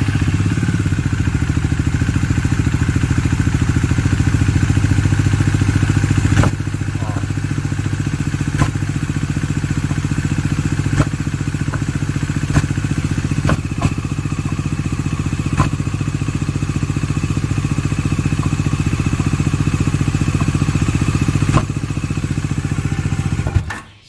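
Bajaj Dominar 400's single-cylinder engine idling, settling a little lower about six seconds in. Sharp knocks cut through the idle at uneven intervals of a second or two. This is an abnormal engine noise on a bike with under 1000 km, and its cause has not yet been found.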